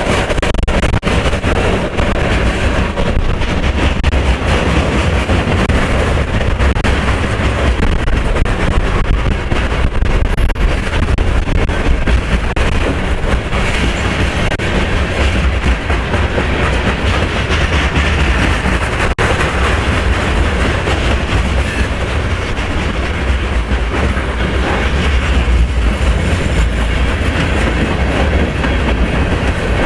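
Freight train rolling past, its cars clattering steadily over the rails.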